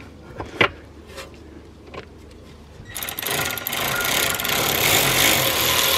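A few light metal knocks as the brake caliper is fitted onto its bracket, then about halfway through a cordless power tool starts running steadily, driving in the caliper slider bolts.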